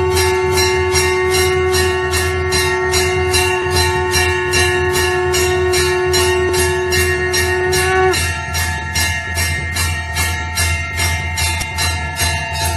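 Temple hand bell rung rapidly and evenly, about four strikes a second, its ringing carrying on between strikes. Underneath is a long, steady held note that stops about eight seconds in.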